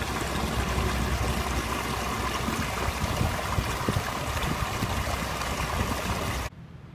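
Water rushing and churning in the propeller wash and wake behind a catamaran's Caroute brushless electric outboard under way; it cuts off suddenly near the end, leaving a faint steady hiss.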